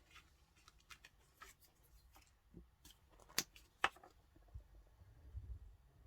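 Scissors snipping paper and card: a run of small crisp clicks and rustles, with two sharper snips about three and a half seconds in, and low thuds on the work surface near the end.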